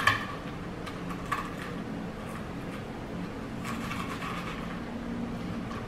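Kitchen knife cutting crispy bacon on a cutting board: a sharp knock of the blade on the board right at the start, another about a second and a half in, and a cluster of light crunching taps around four seconds in, over a steady low hum.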